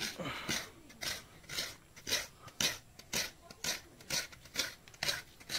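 Halved coconut scraped against a hand coconut grater (kurani), making rhythmic rasping strokes about two a second as the white flesh is grated off the shell.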